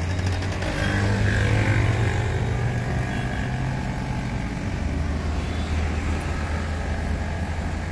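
Road traffic running past on a city bridge: a steady low rumble of vehicle engines, with one louder vehicle passing in the first two or three seconds.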